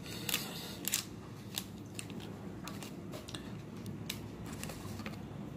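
Faint, irregular small clicks and crunches from crispy fried chicken bites being eaten and handled close to the microphone.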